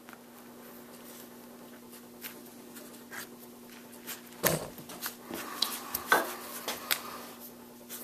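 Soft rubbing and small taps of hands handling a sewing needle, waxed thread and small veg-tan leather belt-keeper pieces on a work table, with a few sharper taps about halfway through, over a faint steady hum.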